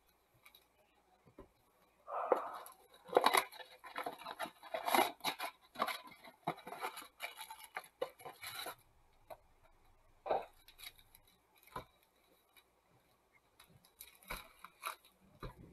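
Trading-card packs and a cardboard mega box being handled and opened: a few seconds of dense crinkling and rustling of wrappers and cardboard, then sparse light clicks and taps as the packs are stacked.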